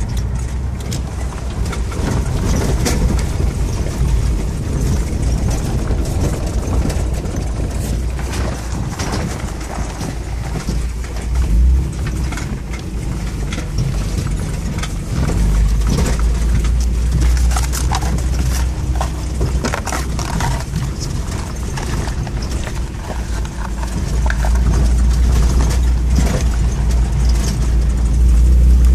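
A 4x4's engine running at low speed, heard from inside the cab, with frequent knocks and rattles of the body and suspension as it drives over a rutted dirt track. The engine gets louder about halfway through and again near the end.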